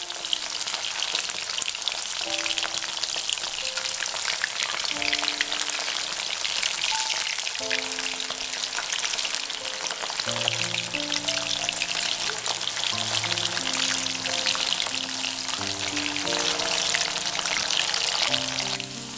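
Chicken and potato slices deep-frying in hot oil in a kadai: a steady, dense sizzle and crackle of bubbling oil. Soft background music of slow held notes plays under it.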